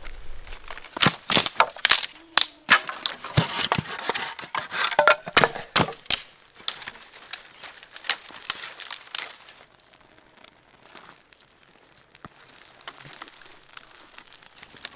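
Dry dead twigs and branches snapping by hand in quick, sharp cracks, with brush rustling between them, as kindling is broken up for a campfire. The snaps thin out and grow quieter over the last few seconds.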